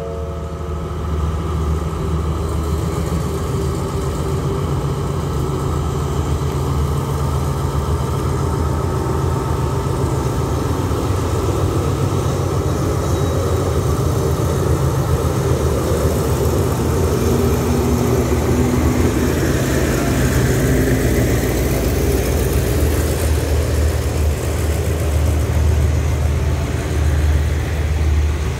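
A diesel train engine running with a steady low hum, slowly growing louder.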